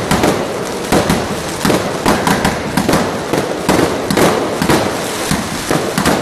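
New Year's Eve fireworks and firecrackers going off nonstop: sharp bangs about twice a second over a constant crackle of more distant explosions.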